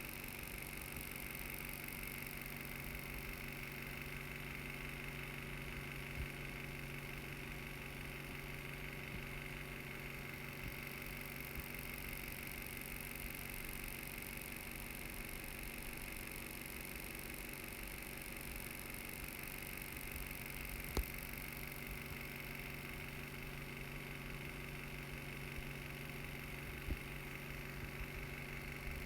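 Steady background hum and hiss (room tone), with a few faint isolated clicks.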